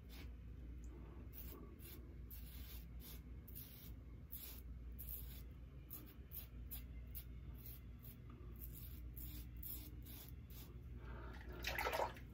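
Double-edge safety razor with a Gillette 7 O'Clock Black blade scraping through lathered stubble in short, faint strokes, about two or three a second. Near the end a louder rush of running water starts.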